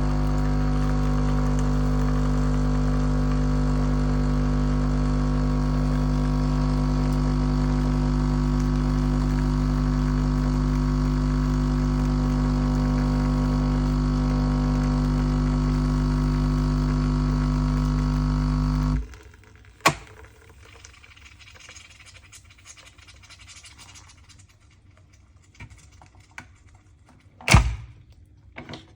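Capsule coffee machine's pump running with a steady, even hum while it brews, cutting off abruptly about two-thirds of the way through. A sharp click follows, then a couple of thunks near the end.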